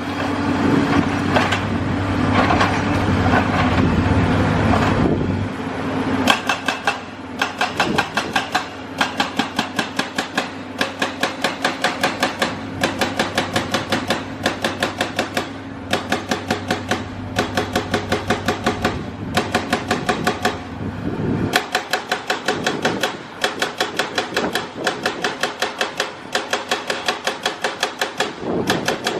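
Excavator engine running, then from about six seconds in a hydraulic breaker hammering concrete in a rapid, even rhythm of about four to five blows a second. The hammering stops briefly a few times, and the engine drone under it drops away about two-thirds of the way through.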